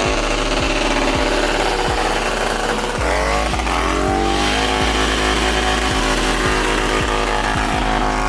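Stunt motorcycle engine revving hard, its pitch climbing sharply about three seconds in and then holding high, over a steady low thumping beat.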